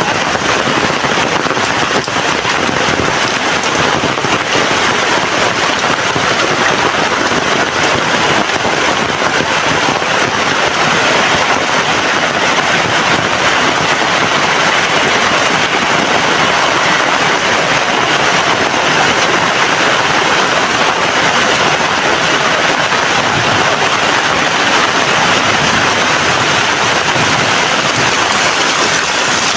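Heavy rain pouring down in a steady, dense hiss with no let-up.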